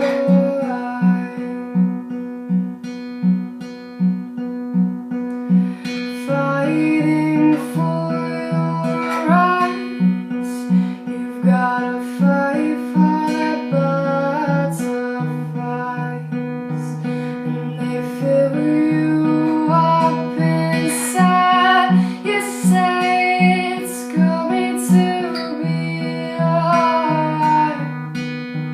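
Acoustic guitar picked in a steady repeating pattern of low notes, with a woman singing an original song over it.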